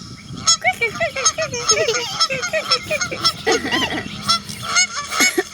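A flock of geese honking, many short calls overlapping one another without a break.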